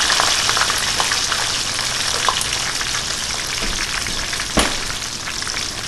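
French fries frying in hot grease in a pan: a steady crackling sizzle that slowly softens. There is a single sharp knock about four and a half seconds in.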